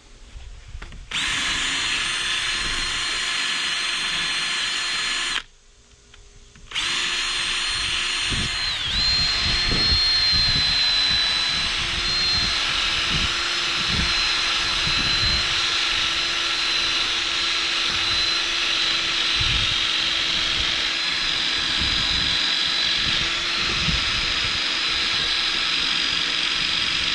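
Small handheld cordless power tool run against a fibreglass boat hull, a steady high whine. It starts about a second in, cuts out briefly, then restarts and runs on, dipping in pitch for a moment soon after restarting.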